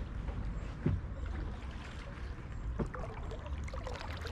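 Water sounds around a kayak: scattered drips and small splashes, with two sharper knocks about one and three seconds in, under a steady low rumble of wind on the microphone.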